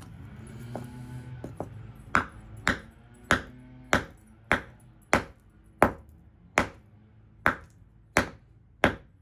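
Club hammer striking a dolomite rock to split it, a steady run of about eleven sharp blows at roughly one and a half per second, starting about two seconds in. Each blow is a hard, short knock of steel on stone with a brief ring.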